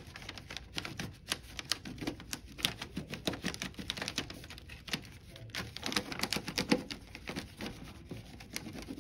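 White wax crayon rubbed quickly back and forth over thin copy paper laid in an aluminium foil tray: a fast, irregular scratching with many small taps, like typing.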